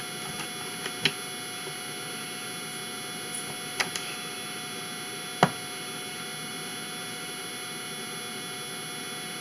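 Steady electrical hum and hiss, with a few light clicks and taps from hands working cookie dough. The sharpest click comes a little past halfway.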